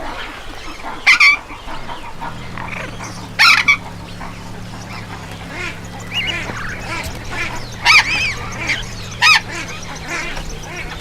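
A flock of waterfowl calling, with four loud, short harsh calls standing out among many softer ones. A steady low hum starts about two seconds in.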